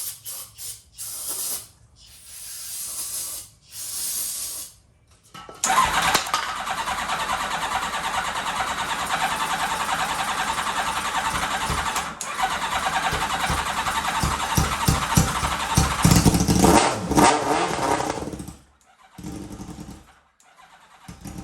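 Kawasaki ZX-7R's inline-four is turned over and starts about five seconds in. It runs roughly for about thirteen seconds, swells near the end, then dies, which the owner puts down to no fuel getting to it. A few short handling noises come before it.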